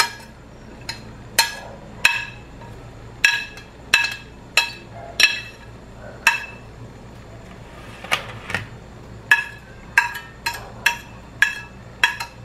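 About twenty sharp metallic taps at an irregular pace, each with a short ring, as chopped cilantro is knocked off a plastic cutting board into a bowl holding a metal spoon. There is a pause of over a second in the middle.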